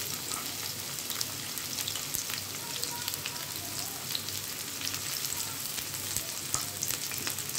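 Freshly added chopped onions frying in hot oil in a kadai, a steady sizzle with scattered small crackles and pops.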